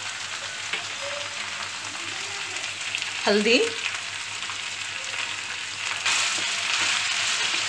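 Amaranth leaves sizzling in hot oil in a frying pan over a medium-to-high flame. About six seconds in, a wooden spatula starts stirring them and the sizzle gets louder and brighter.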